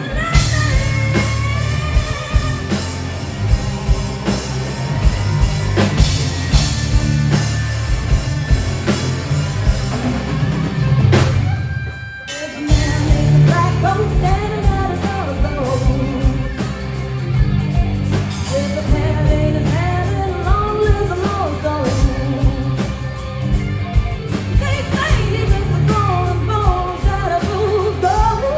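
Live rock band playing a song, with a lead singer over drums, bass and guitar; the band drops out briefly about twelve seconds in, then comes back in.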